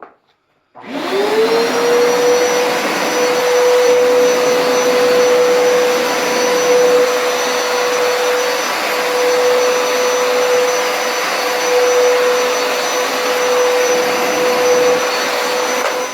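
Hoover Carpet Basics Power Scrub Deluxe carpet cleaner switched on about a second in, its motor spinning up to a steady high whine over loud suction noise, going over a carpet stain on the rinse pass.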